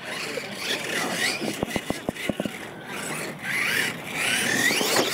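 R/C monster truck motor whining, its pitch sweeping up and down as it is throttled. About a second and a half in there is a quick run of sharp clicks and knocks.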